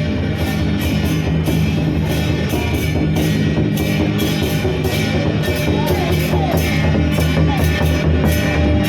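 Loud music with a steady drum beat over sustained low, droning chords.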